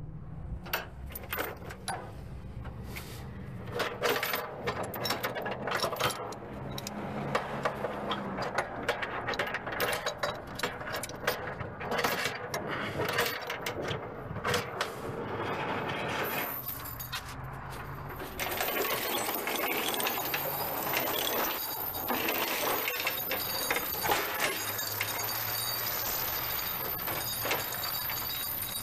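Heavy steel tie-down chain clanking and rattling link on link as it is handled and hooked under a truck's frame. There are many irregular clinks and knocks over a steady low hum.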